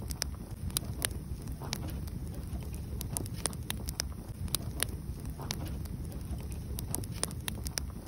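Wood fire burning: many irregular, sharp crackles and pops over a steady low rush.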